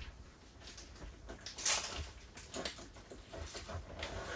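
Faint irregular handling noises of sausages being stuffed with forcemeat: soft squishes and light knocks, with one louder rustling scrape a little under two seconds in.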